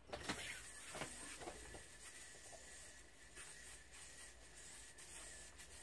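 A few faint knocks and rustles as a yoyo is thrown and its string handled, then quiet room tone.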